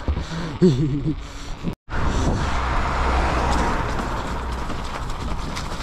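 A man's voice briefly in the first second, then after a sudden cut a steady rush of wind over the microphone with a low rumble, the noise of riding a mountain bike.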